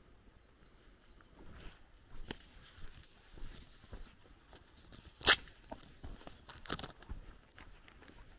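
Footsteps on a dirt path with a single sharp click about five seconds in, the loudest sound, then a crinkling paper wrapper handled near the end.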